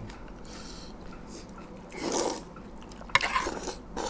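A spoon lifting the liquid dressing of a Thai fried-egg salad and letting it drip and splash back onto the plate, in two short spells, with a sharp clink of the spoon against the plate just after three seconds in.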